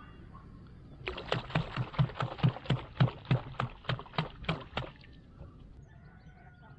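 Rapid run of about fifteen sharp knocks, about four a second. It starts about a second in and stops about four seconds later.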